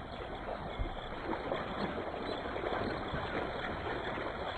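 Shallow water splashing and sloshing in a steady wash as hyena and African wild dogs tear at a kill standing in the water.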